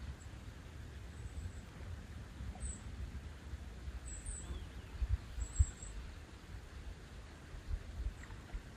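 Light wind rumbling on the microphone, with a few stronger low bumps about five seconds in, and several short, faint, very high bird chirps scattered through it.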